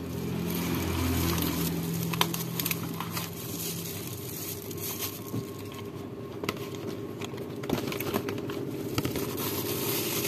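Crinkling of a clear plastic food-service glove and handling of a cardboard takeaway box, with scattered small clicks and taps. A low steady hum sits underneath for the first few seconds.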